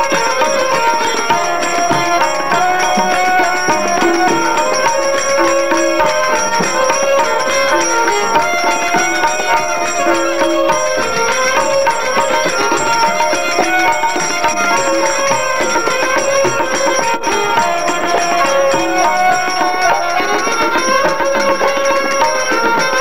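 Instrumental shaan in Raag Basant: a violin plays a stepping melody over a steady tabla rhythm, with harmonium accompaniment.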